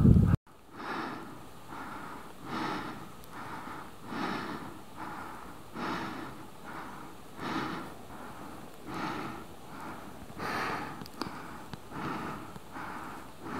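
A mountaineer's heavy, rhythmic breathing, laboured from climbing at high altitude, with strong breaths about every one and a half seconds and fainter ones between. Just before it, loud wind noise on the microphone cuts off abruptly about half a second in.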